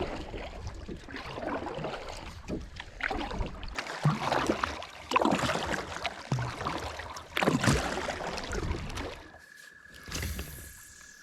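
Kayak paddling: irregular swishes and splashes of the paddle blades in the water, with a few low knocks. A faint steady high tone begins near the end.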